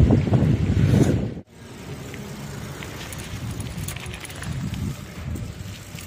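Wind buffeting the microphone of a phone carried on a moving bicycle, loud at first and cut off suddenly about a second and a half in. After that, the quieter steady sound of the bicycle rolling over a rough lane, with a few faint clicks.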